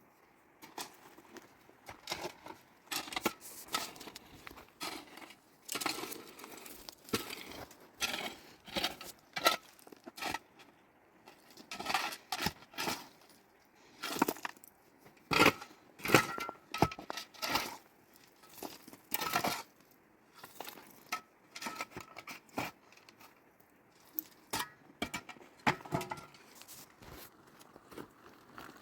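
Irregular clinks, knocks and crinkling of objects being handled, in quick uneven clusters with short pauses between them.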